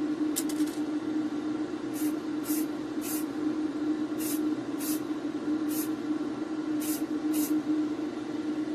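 Aerosol spray can giving short hisses, about nine quick bursts, as light coats of paint go on. Under them runs the steady hum of an electric fan.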